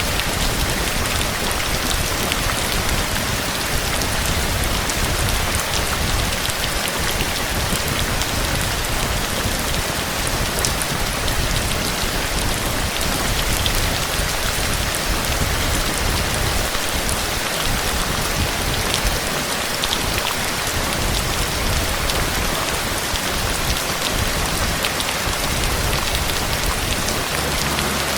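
Steady rain falling, an even hiss with scattered sharp ticks of individual drops striking nearby surfaces.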